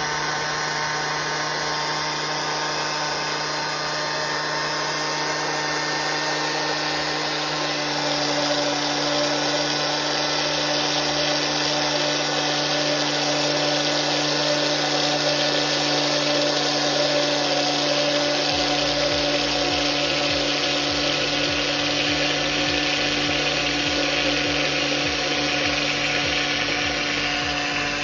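Osterizer countertop blender motor running steadily at speed, whirring through beaten eggs while oil is drizzled in slowly to emulsify them into mayonnaise. It gets slightly louder from about eight seconds in.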